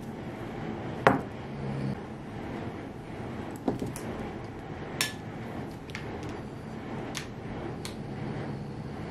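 Half a dozen sharp clicks and knocks from small hard objects being handled and set down, the loudest about a second in, over a steady background hiss.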